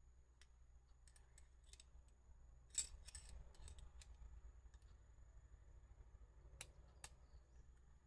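Faint metal clicks and handling of a Ztto spoke tension meter as a 3 mm hex key is fitted between its studs and the lever is squeezed and released. The loudest click, with a short rustle, comes about three seconds in, and two sharp clicks come near the end.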